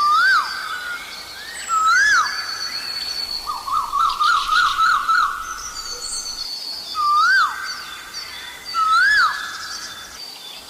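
Asian koel calling: a loud, clear note that rises and then drops, given four times in pairs about two seconds apart, with a quick bubbling run of notes in between. Other small birds chirp faintly and higher in the background.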